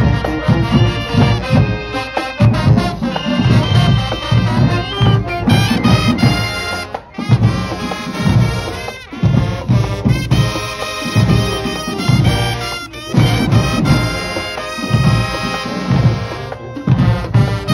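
Marching band playing: a brass section of trumpets and trombones over a pulsing drum beat, with short breaks in the music about seven and nine seconds in.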